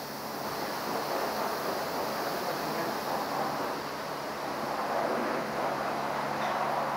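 Steady rushing hiss of a self-service car wash's high-pressure spray, with a low steady hum of the wash pump underneath.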